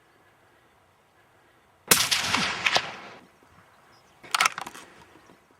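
A single hunting-rifle shot about two seconds in, its report trailing off over about a second, followed by a shorter, quieter burst of noise about two and a half seconds later.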